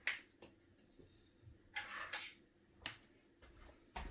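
Small metal hand tools being handled on a work surface: a few light clicks and a short scrape a little under two seconds in.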